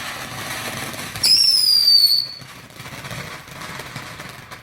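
Small consumer 'Killer Bees' screamer firework hissing as it burns. About a second in it lets out one loud, high whistle lasting about a second, dropping slightly in pitch, and the hiss carries on after it.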